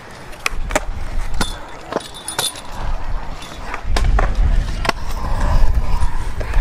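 Stunt scooter and skateboard wheels rolling on skate park concrete. A low rumble starts about half a second in and grows louder about four seconds in. Sharp clacks and knocks of decks and wheels striking the concrete and a metal rail run through it.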